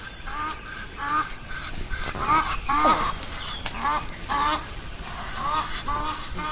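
Geese honking: a quick series of short, repeated calls, loudest about two to three seconds in, with one longer call falling in pitch near three seconds.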